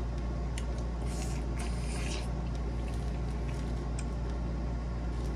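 A person eating seafood boil: faint clicks and short rustling, squishy handling and chewing noises, mostly one to two seconds in, over a steady low hum.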